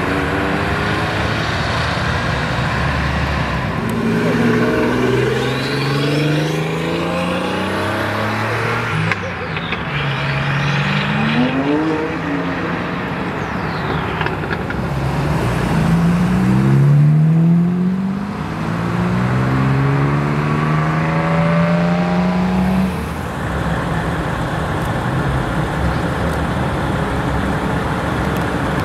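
Sports car engines accelerating hard one after another, a Ferrari 308's V8 and a classic Porsche 911's flat-six. Each engine's pitch climbs and drops back through several upshifts.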